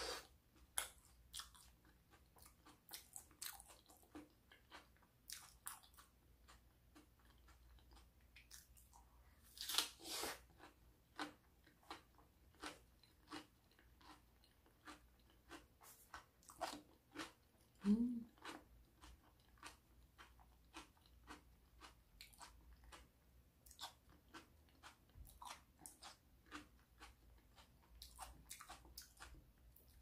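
Close-miked chewing and biting of food, with many small crisp crunches at an irregular pace. One short low rising sound comes about halfway through.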